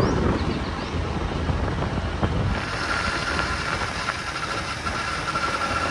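Wind rushing on the microphone with road and engine noise from a motorbike under way. About halfway through, a steady, faintly pulsing high-pitched buzz joins in.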